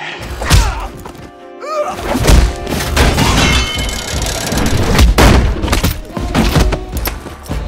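Fight sound effects over music: a rapid series of heavy punches, thuds and booming body impacts. A loud hit comes about half a second in, and the blows come thick and fast from about two seconds in.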